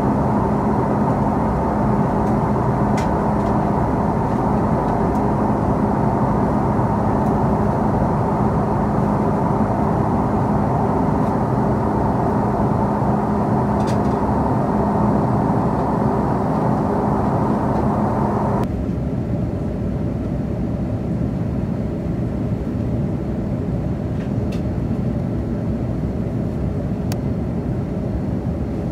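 Steady in-flight cabin noise of an Airbus A330-200 heard from a window seat near the wing and its Pratt & Whitney PW4168A engine: engine and airflow noise with a steady hum. About two-thirds of the way through, the noise suddenly becomes quieter and duller as the recording jumps to the descent.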